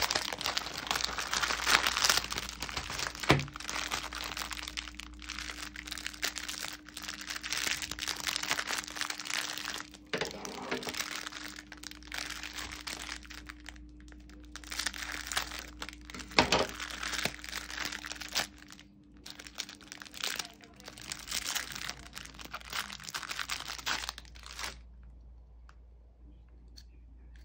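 Crinkling and tearing of a Parle-G biscuit packet's plastic wrapper, with scissors cutting the inner plastic sleeve. The rustling stops suddenly about three seconds before the end.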